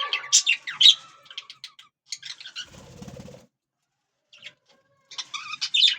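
Pet budgies chattering with quick, high chirps, then a brief fluttering rustle about two and a half seconds in. The sound cuts out completely for about a second and a half before the chirping starts again near the end.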